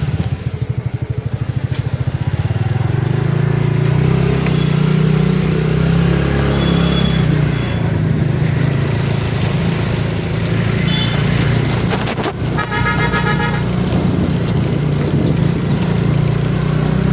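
Steady low rumble of motor vehicle engine and road noise, with a vehicle horn honking once for about a second roughly twelve seconds in.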